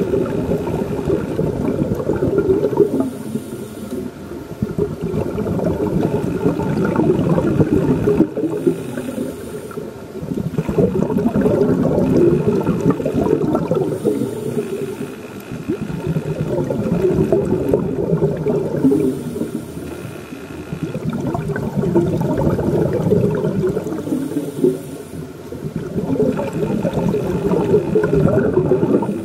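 Scuba diver breathing through a regulator underwater: long bubbling exhalations about every four to five seconds, each followed by a short hiss of inhalation.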